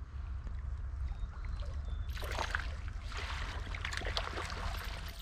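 Stream water splashing and sloshing, starting about two seconds in, as a hooked trout is brought in. A low steady rumble runs underneath.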